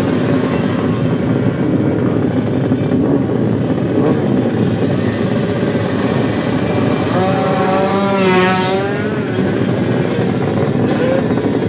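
Several two-stroke motorcycle engines revving at once at a drag-race start line, a dense, continuous buzz. A wavering, rising and falling tone stands out about eight seconds in.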